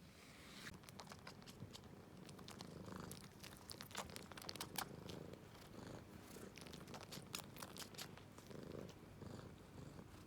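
Domestic cat purring faintly and steadily, with scattered small ticks and rustles over it.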